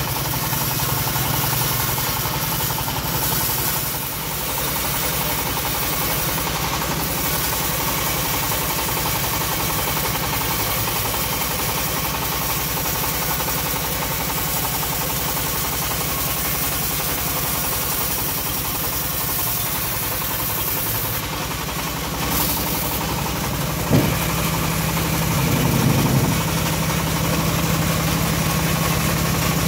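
Engine-driven homemade bandsaw mill running steadily while teak is fed through the band blade. There is a sharp knock about 24 seconds in.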